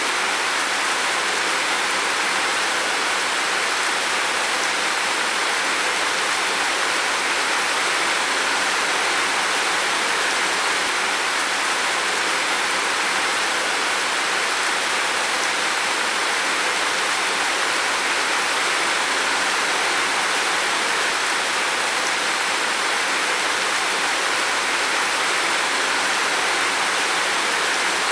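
Heavy rain falling steadily on a roof, an even, unbroken hiss of dense drops with no single strikes standing out.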